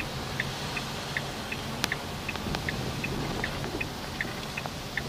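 Car turn-signal relay ticking steadily, about two to three clicks a second alternating between two slightly different tones, over low engine and road noise inside the car's cabin as it turns off the road.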